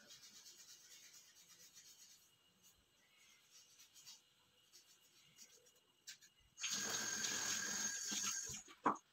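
A kitchen tap running for about two seconds near the end, cutting off abruptly, then a single sharp knock.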